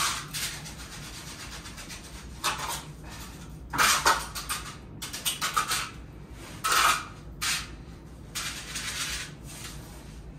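Hand trowel scraping and smoothing wet concrete in a floor patch: a series of short rasping strokes at irregular intervals, the loudest about four and seven seconds in.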